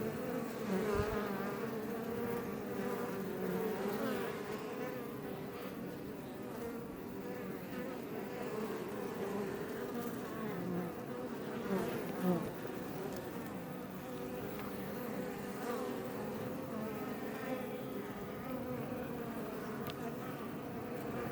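Iberian honey bees buzzing at the entrance of a Langstroth hive: a continuous hum of many bees, with individual bees flying close past and briefly louder now and then, one loudest about twelve seconds in.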